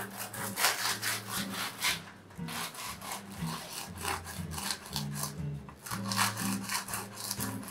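Serrated bread knife sawing through the crisp crust of a freshly baked sourdough baguette, short back-and-forth strokes about two or three a second.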